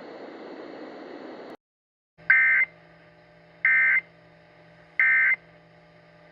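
Emergency Alert System End of Message data burst: three short, identical bursts of buzzy digital tone about 1.3 seconds apart, marking the close of the alert. Before them a faint hiss cuts off about a second and a half in, and a faint steady hum runs under the bursts.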